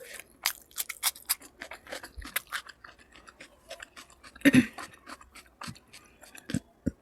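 Close-miked chewing of food: a rapid run of crisp crunches and wet mouth clicks, with one louder crunch about two-thirds of the way through.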